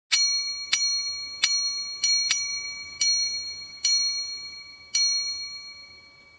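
Bright bell-like ding sound effect struck eight times at uneven intervals. Each ding rings on and fades slowly under the next, and the last dies away near the end.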